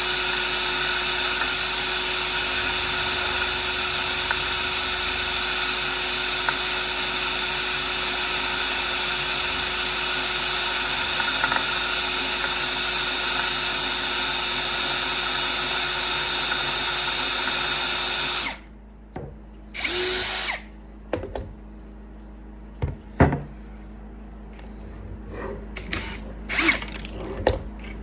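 Electric drill running steadily with a constant whine, drilling into the axe's handle, then cutting off about two-thirds of the way through. A brief second burst follows, then a few sharp knocks and clicks of tool handling.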